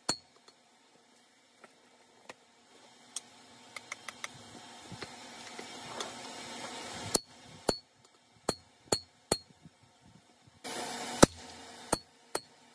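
Hand hammer striking a hot block of 4140 steel on the anvil while forging a cross peen hammer head: single ringing blows, one near the start, a run of five from about seven to nine and a half seconds in, and a few more near the end. Between the blows a hiss swells for several seconds. A short burst of noise comes with the loudest blow near the end.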